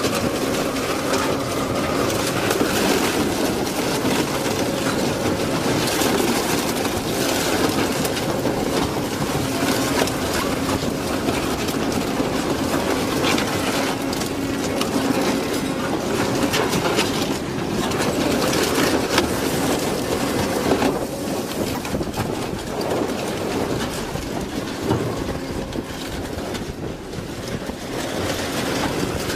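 Industrial twin-shaft shredder tearing up a van: a steady machine hum under continual crunching and sharp cracking as sheet metal, glass and plastic are ripped apart by the cutters.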